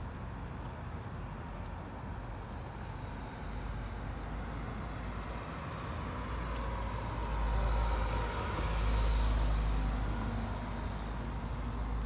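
A Mini hatchback drives past, its engine and tyre noise swelling to a peak about eight or nine seconds in and then fading. Steady low traffic rumble runs underneath.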